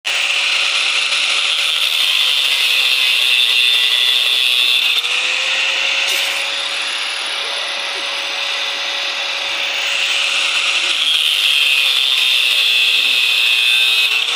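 Power tool motor running steadily, its pitch sagging and recovering twice as it takes load.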